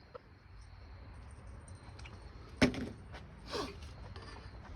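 A single sharp click about two and a half seconds in, then a brief scrape or rustle a second later, over a low steady hum.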